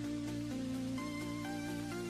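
Background music of sustained chords, with new higher notes coming in about halfway through.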